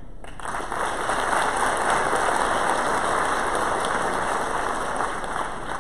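Audience applause, an even patter of many hands clapping that swells in the first second or so and eases slightly near the end.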